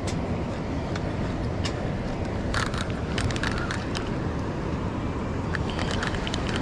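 Steady rush of white water pouring through a spillway, with a few short clicks in the middle.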